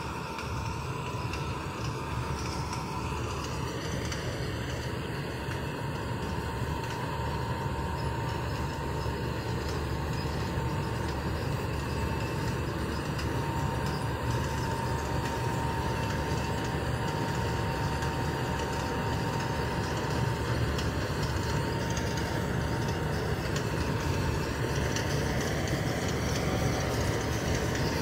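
Balkar combine harvester running: a steady low mechanical rumble with a thin, constant whine above it, growing gradually louder.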